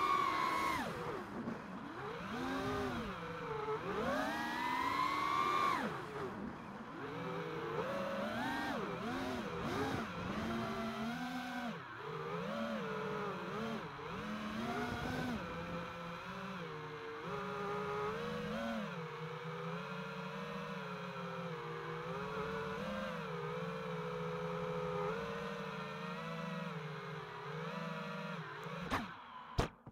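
FPV quadcopter's electric motors and propellers whining, the pitch rising and falling with the throttle, then steadier and lower as it flies slowly near the ground. There are a couple of sharp knocks near the end as it comes down into the grass, and the motors cut off.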